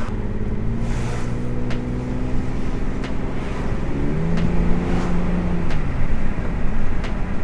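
A Lexus GS300's naturally aspirated 2JZ inline-six running smoothly on the move, its misfire now cured, over a steady haze of road and wind noise. The engine note steps up in pitch about four seconds in, then fades out about two seconds later, with a few sharp ticks along the way.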